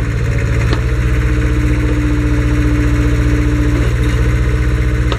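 Backhoe engine running steadily at idle, with a steady hum and a light click about a second in and another near the end.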